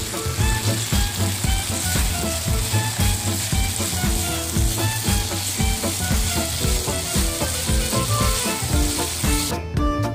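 Marinated pork bulgogi sizzling as it fries in a nonstick pan while being stirred, with background music playing. The sizzling stops near the end, leaving only the music.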